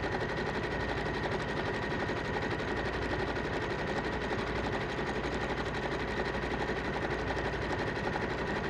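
Sewing machine running steadily while sewing a zigzag stitch along a fabric edge, a fast, even run of needle strokes.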